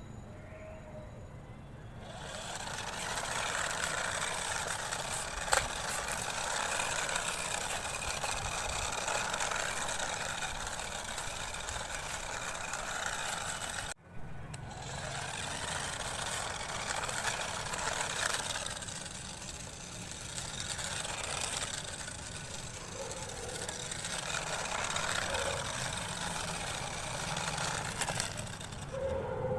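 Rastar 1:24 Mercedes AMG GT toy RC car driving, its small electric motor and gears whirring steadily from about two seconds in. There is a sharp knock about five seconds in, and the whir cuts out for a moment about halfway and then carries on.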